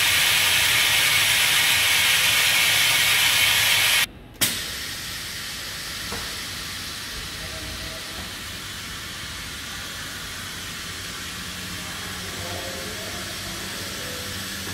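Loud steady hiss of air rushing into the stainless twin paddle mixer's vacuum chamber as the vacuum is released. It cuts off suddenly about four seconds in, followed by a click and then a much quieter steady hiss while the switch-operated lid swings open.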